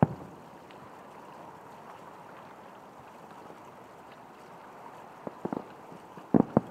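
Aerial firework shells booming: one deep bang with a low rumble at the start, then a scattered cluster of sharp bangs near the end, over a steady rushing background noise.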